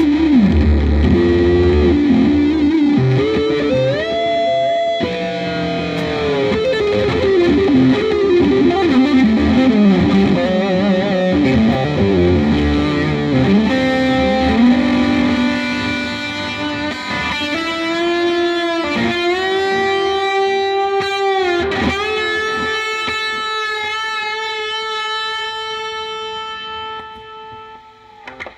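Stratocaster electric guitar played lead through high-gain distortion and fuzz pedals: single notes with several string bends, then a long sustained note that fades away near the end.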